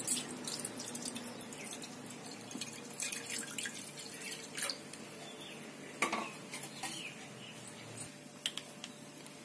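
Milk poured in a thin stream into a nonstick frying pan: a faint trickling and dripping, with a few small taps scattered through it.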